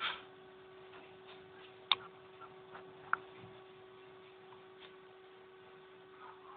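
Steady low hum, one constant tone, with a few sharp clicks or taps: one at the start, a louder one about two seconds in and another about three seconds in.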